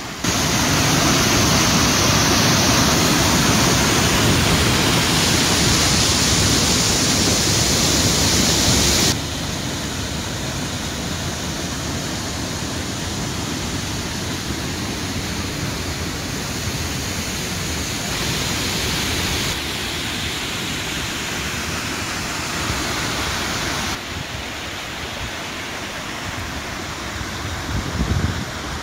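Steady rushing roar of running water, like a waterfall or fast stream. Its level drops abruptly about a third of the way in and shifts a few more times later.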